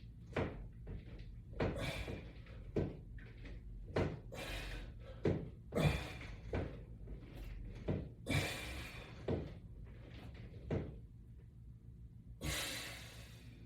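Knocks and clunks from a resistance-band exercise rig, about one a second, as the band attachment and wall-mounted latch bar hardware move through repeated presses. A few longer hissy rushes come in between, loudest near the end.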